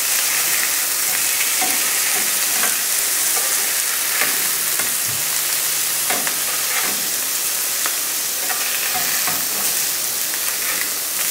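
Fish sizzling in olive oil in a hot grill pan: a steady frying hiss.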